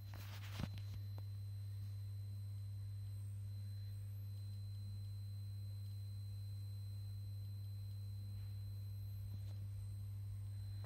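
Steady low mains hum, a deep tone near 100 Hz, from old Soviet mains-powered bench equipment such as the S1-72 oscilloscope. A brief rustle and a click of handling come about half a second in.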